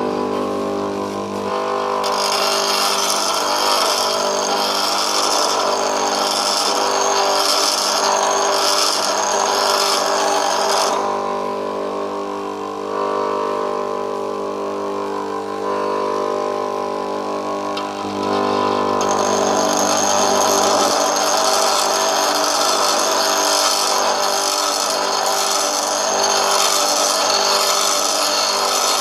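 A grinder motor runs with a steady hum while a high-speed-steel lathe tool bit is ground against the wheel, giving a hissing grind that pulses about once a second. The grinding fades for several seconds in the middle, leaving mostly the motor hum, then starts again. This is the bit being shaped in the sharpening of a lathe cutting tool.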